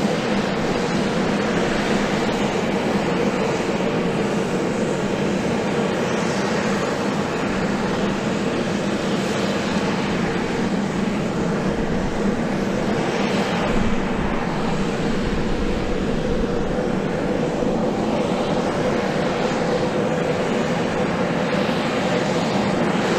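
USAF Osprey tiltrotor running steadily: a loud, even rush with a constant hum underneath and no change in pace.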